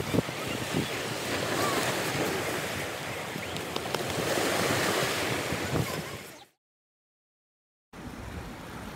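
Waves and wind on a seashore, with wind buffeting the microphone. The sound cuts off abruptly about two-thirds of the way through, leaving a moment of dead silence, then comes back as quieter beach ambience.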